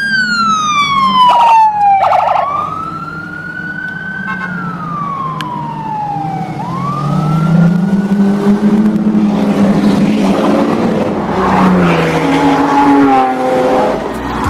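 Police siren wailing, sweeping slowly down and up in pitch twice. About halfway through, the engines of a convoy of Lamborghini supercars come in, revving loudly, several at once.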